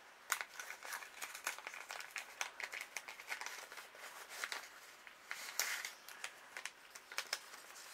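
Paper and card stock rustling and crinkling in the hands, with irregular small clicks and crackles, as handwritten paper cards are sorted through to find one.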